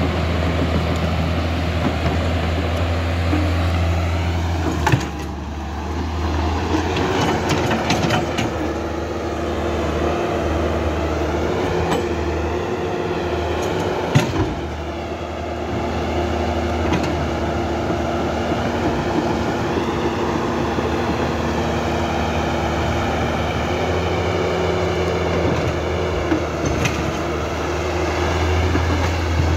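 Huina 1550 RC toy excavator's electric motors and gearboxes whining as the boom, arm and bucket move through sand. The pitch shifts as different functions switch on and off, with a few sharp clicks along the way.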